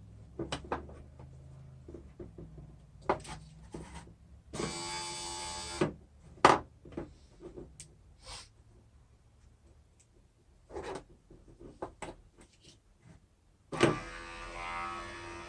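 Acura TSX power window regulator motor and gearbox, freshly cleaned and re-greased, test-run on the bench: a short steady buzzing run of about a second a little over four seconds in, then several clicks and knocks, then the motor running again near the end. The once-seized gearbox now turns freely.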